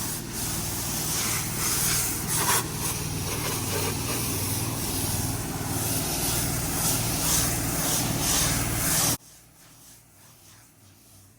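Pressure washer running, with its engine hum under a steady hiss of water spray; the sound cuts off suddenly about nine seconds in.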